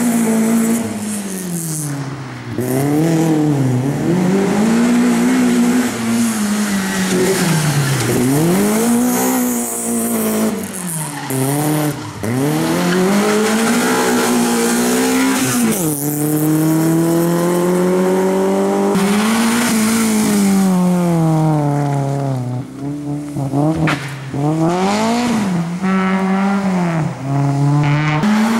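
Rally car engine revving hard and lifting off again and again as the car is driven through tight turns, its pitch rising and falling every couple of seconds, with tyre squeal over it.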